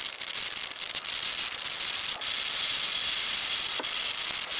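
BR Standard Class 2 2-6-0 steam locomotive 78019 hissing steadily as it draws slowly into the platform, with a faint high whine joining about two seconds in.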